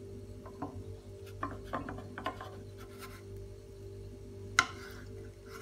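Spatula scraping and rubbing against a nonstick frying pan as a milk pancake's edge is lifted to check its underside: a few short scratchy strokes in the first half, then one sharp knock about four and a half seconds in.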